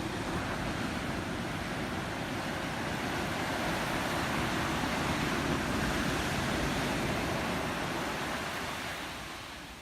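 Ocean surf washing onto a beach: a steady rushing wash that swells toward the middle and fades away near the end.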